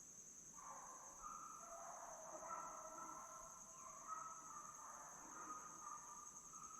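A pack of deer hounds baying far off, several drawn-out voices overlapping, over a steady high drone of crickets or other insects.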